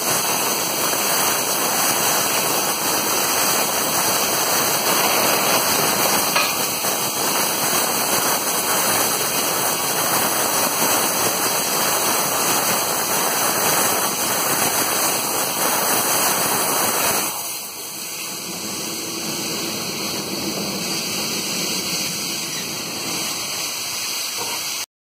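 Steady rushing hiss of steam in the cab of a South African Class GMA/M Beyer-Garratt steam locomotive, easing somewhat about seventeen seconds in.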